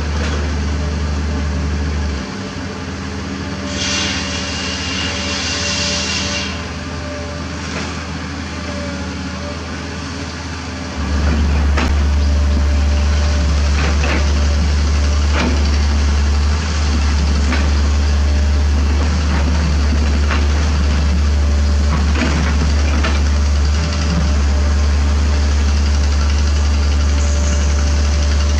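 Diesel engines of Kobelco SK75 mini excavators running steadily under digging load, a deep continuous drone that becomes louder about a third of the way in. Scattered knocks and scrapes of the buckets against limestone come through over it in the second part.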